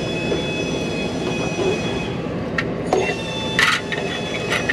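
A steady background noise, with a few short metal clinks from about two and a half seconds in, the loudest near three and a half seconds, as a socket on an extension is fitted onto an exhaust gas temperature sensor on the truck's exhaust.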